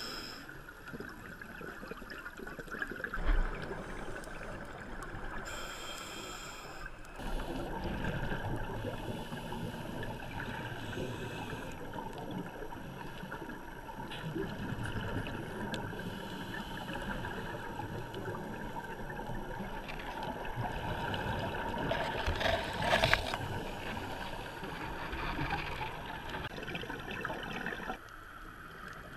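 Muffled underwater noise from a diver's camera housing, with bubbling and the hiss of scuba breathing. Louder bubbling bursts come about three seconds in and again near the end.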